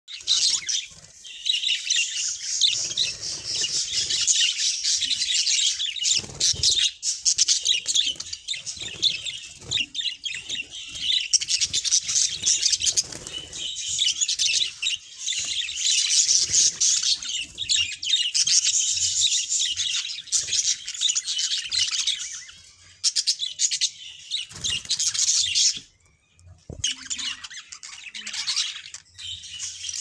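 A group of budgerigars singing and chattering in a dense, almost unbroken run of high chirps and squawks, with a short lull about four seconds from the end.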